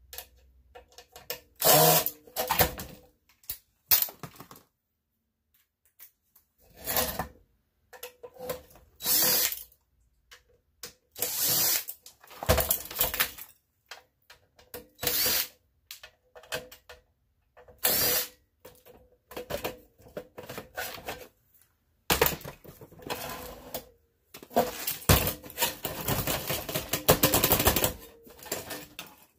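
Cordless drill/driver backing screws out of a steel computer case in a series of short runs, with clanks and rattles from the sheet-metal drive cage being handled in between.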